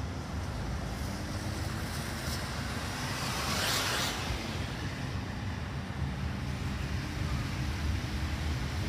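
Steady vehicle rumble and road noise, with a louder rushing whoosh peaking about three and a half seconds in.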